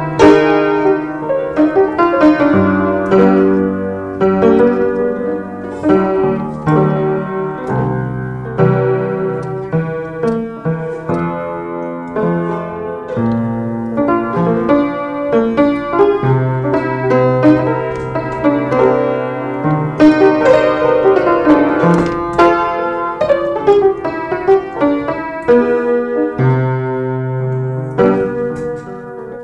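Piano playing chords and a melody over low bass notes, each held for a second or more.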